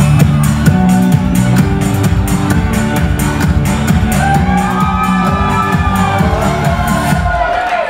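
Electronic dance music with a steady beat and heavy bass. About halfway in, a high melody line with gliding pitch comes in, and near the end the bass drops out briefly.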